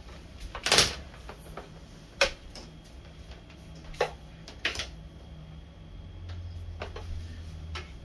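Power cord being pulled out of a Bosch GL-30 bagged vacuum cleaner's retractable cord reel, with a handful of sharp plastic clacks and knocks scattered through it.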